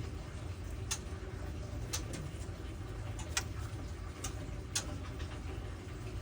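About six short, sharp clicks at uneven intervals over a steady low rumble.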